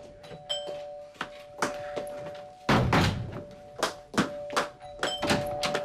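Footsteps of a woman walking briskly across a wooden stage floor toward a door, a knock about every half second, with a heavier thud about three seconds in.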